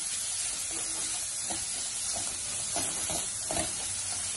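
Chopped onion, garlic and coriander leaves sizzling in oil in a pan, with a steady hiss. A wooden spatula scrapes and stirs them against the pan several times, mostly in the second half.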